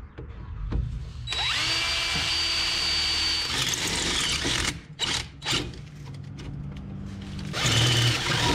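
Power drill drilling out a pilot hole into a larger bolt hole in a metal strut mount. The motor spins up about a second in with a high whine, runs steady for about two seconds, winds down, then runs in a few shorter bursts.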